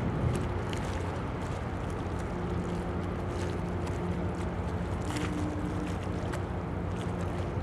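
Tugboat's diesel engines running with a low, steady drone, mixed with wind rushing on the microphone.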